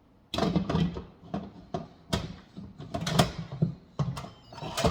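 Handling at an Instant Pot: a run of about a dozen sharp clicks and knocks, irregularly spaced.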